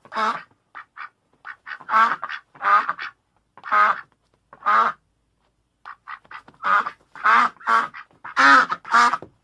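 Domestic duck quacking: a run of about twenty short, harsh quacks in clusters, with a pause of about a second just past the middle.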